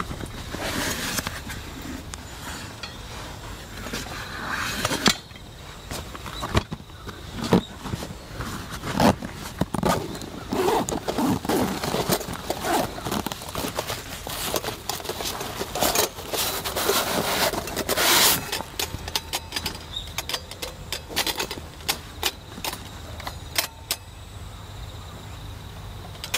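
Hands handling padded camping-lantern cases: zippers opening, fabric rustling, and scattered light clicks and clinks of metal lanterns being lifted out.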